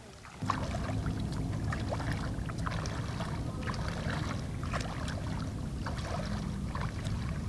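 Shallow sea water splashing and sloshing around people wading, over a low steady rumble; it starts abruptly about half a second in.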